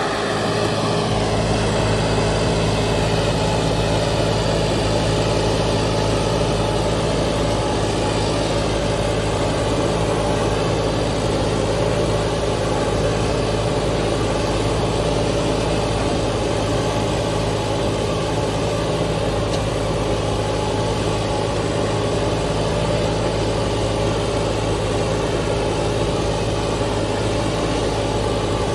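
John Deere 5075 E tractor's diesel engine running at a steady, unchanging speed while the tractor works a mounted grader blade.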